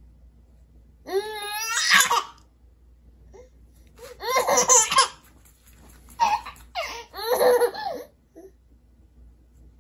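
Nine-month-old baby girl laughing in repeated fits: high-pitched bursts of laughter about a second in, around four seconds and again around seven seconds, with short pauses between.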